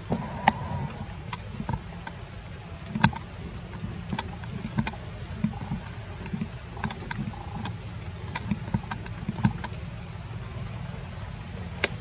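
Irregular sharp clicks and crackles of twigs and leaves being handled in forest undergrowth, over a steady low rumble.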